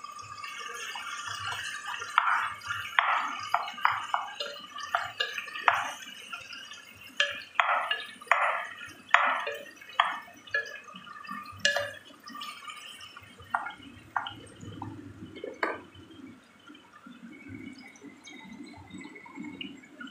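Wooden spoon stirring and turning wet raw chicken pieces in a pot: quick squelching, scraping strokes, many in a row through the first half, fewer later.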